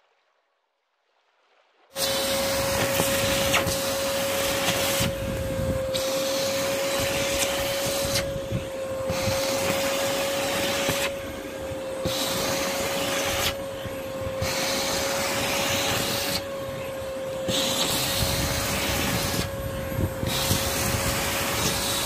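AmazonBasics dry vacuum cleaner running, coming in suddenly about two seconds in: a steady rush of air with a constant motor whine under it. The rush of air dips briefly every two to three seconds while the whine holds steady.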